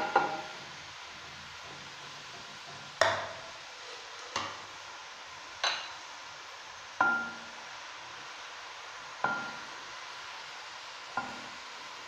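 Chopped onions frying in oil in an aluminium wok, a low steady sizzle, with about seven sharp knocks of utensils against the pan, a couple of them ringing briefly.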